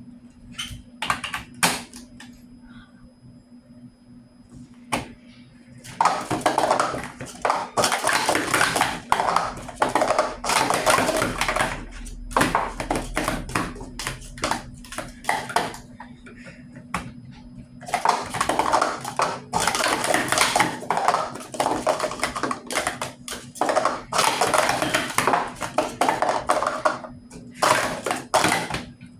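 Rapid, dense clicking and clattering of small hard objects being handled, in two long runs with a short pause between, after a few separate clicks.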